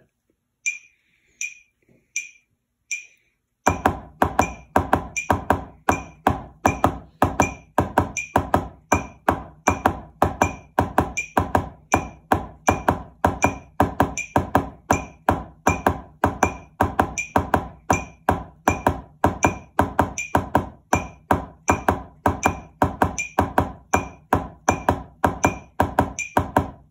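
A metronome clicks at 80 beats per minute. About three and a half seconds in, drumsticks start playing double strokes, two taps per hand, on a drum practice pad in time with it, giving an even, rapid run of taps.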